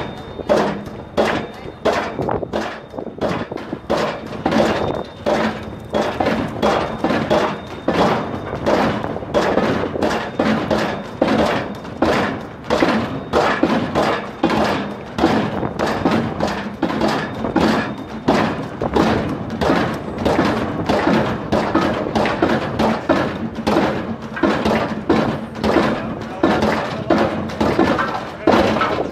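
Pile-driving rig hammering a precast concrete pile into the ground: a steady rhythm of heavy blows.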